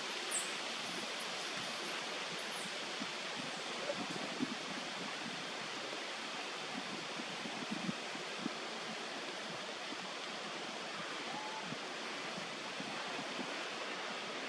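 Steady rushing hiss of wind outdoors, the kind made by breeze through tree leaves, with a thin high whistle during the first two and a half seconds and a few faint ticks.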